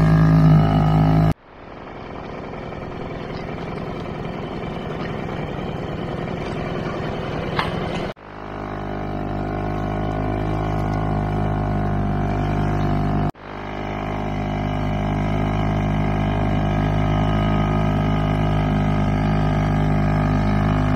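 Small outboard motor on a dinghy running at a steady speed. The sound drops out abruptly three times and swells back in each time.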